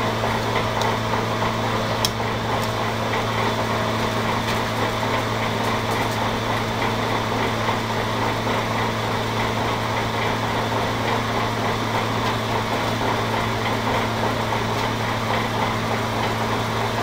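Electric blower feeding air into a small coke forge, running with a steady hum and rush of air. A few faint clicks in the first six seconds.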